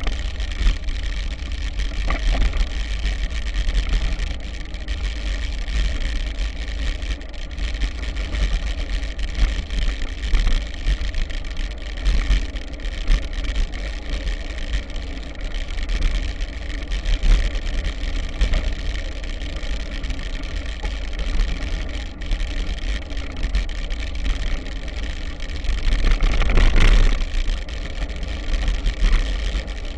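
Bicycle riding along a gravel track: wind buffeting the microphone as a heavy low rumble, over the steady crunch and rattle of the tyres on loose gravel and dirt. It swells louder for a moment near the end.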